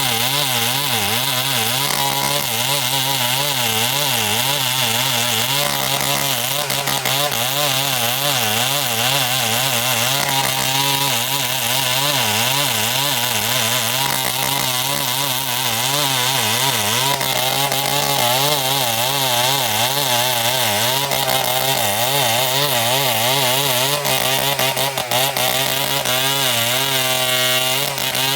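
Two-stroke chainsaw running under load while cutting timber, its engine speed wavering up and down as the chain bites into the wood. It revs up near the end.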